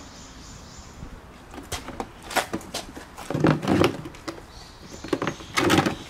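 Green plastic crate being shifted on wet pavement: a run of scrapes and knocks, loudest twice, in the middle and near the end.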